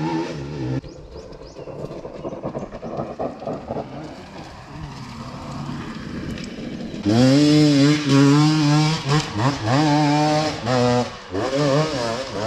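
Dirt bike engine, faint for the first several seconds. About seven seconds in a bike revs hard close by, climbing a steep dirt hill, its revs rising and dropping in repeated throttle surges.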